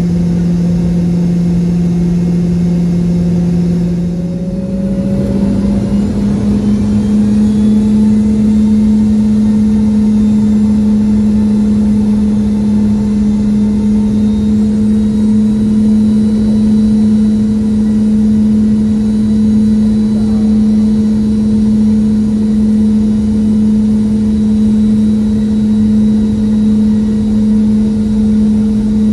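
Boeing 717-200's rear-mounted Rolls-Royce BR715 turbofans heard inside the cabin while taxiing: a loud steady engine drone that steps up to a higher hum about five seconds in and holds there.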